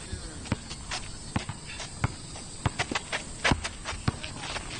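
A basketball being dribbled on an outdoor asphalt court: a run of sharp bounces at an uneven pace, with sneakers scuffing on the surface.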